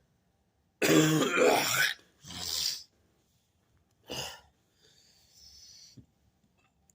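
A man coughing and clearing his throat between burps: a loud rasp of about a second, then two shorter ones, and a faint hiss of breath after.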